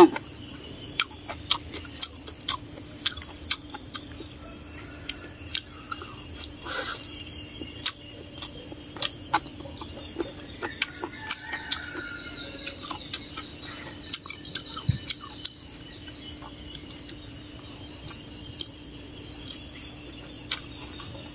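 Close-up mouth sounds of eating mixed instant noodles: irregular wet smacking clicks of chewing, sometimes several a second. Chickens cluck faintly in the background.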